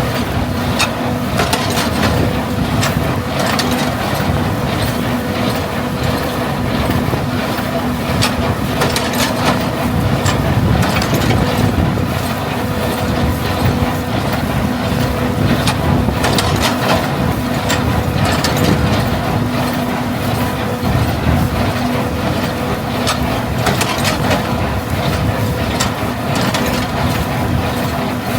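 A tractor and small square baler working in the field: a steady engine hum with frequent irregular mechanical clacks and knocks from the baler.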